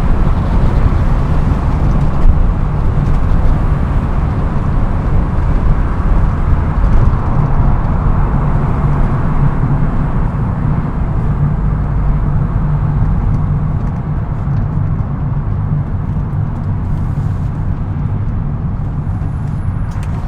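BMW E36 M3's straight-six engine droning steadily with road noise, heard from inside the cabin while driving at an even pace.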